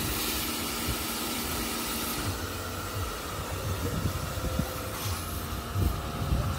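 Kärcher electric pressure washers running, a steady motor-and-pump hum under the hiss of water spraying from the lances onto bicycles.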